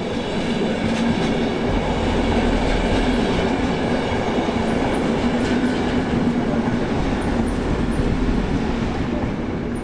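A train passing on a railway line: a steady rumble of rolling wheels with a low hum running through it, easing slightly near the end.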